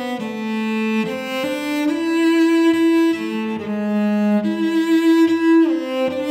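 Solo cello, bowed, playing sustained notes that change about once a second, with a falling slide between notes about five and a half seconds in.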